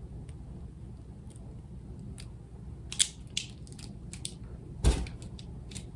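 Handling noises as the mini fridge's cords and plastic parts are picked up and moved: scattered light clicks and rustles from about three seconds in, and one louder knock near the end, over a low steady hum.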